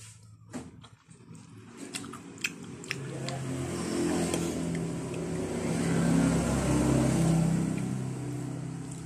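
A few fork-and-plate clicks and chewing, then a motor vehicle passing: its engine hum and road noise swell to a peak about six to seven seconds in, then fade.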